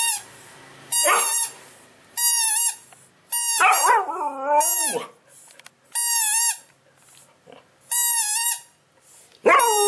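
A Siberian husky howls and yowls in answer to a spiky rubber squeaky toy being squeezed over and over. The toy gives about six short high squeaks, each about half a second long, and the dog's longer, bending cries come in between and over them.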